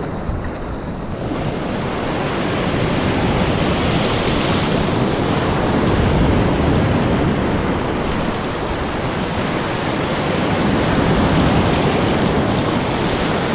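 Shore-break surf washing and foaming in shallow water close around the listener, a steady loud rush that swells about four seconds in and again about ten seconds in.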